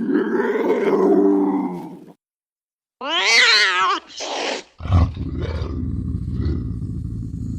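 Wild cat calls cut from lynx, bobcat and cougar recordings: a low drawn-out yowl, then after a short pause a high wavering scream and a shorter cry, then a low rough growl that runs on.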